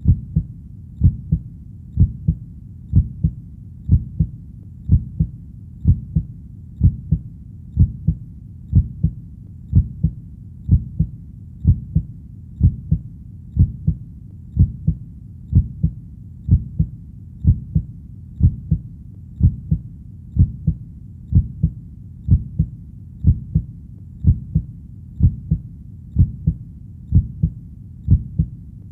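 Heartbeat, a steady low double thump (lub-dub) repeating about once a second, over a faint low background hum.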